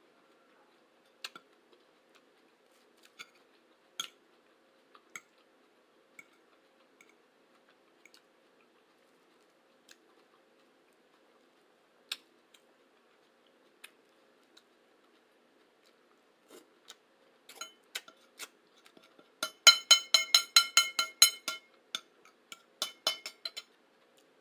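A person chewing food, with scattered soft clicks from the mouth. Near the end comes a louder run of rapid clicks, with a faint steady hum underneath throughout.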